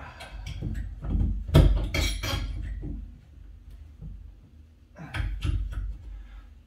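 Rusty nails being twisted out of a wooden closet door frame with a hand tool: clusters of sharp metallic clicks and scrapes against the wood, in three spells, the loudest around two seconds in.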